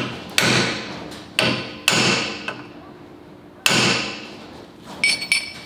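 Hammer striking a cold chisel against a steel axle-seal wear ring to cut it loose from the hub. There are four heavy blows, each ringing and dying away, then a quick run of lighter metallic taps with a high ring near the end.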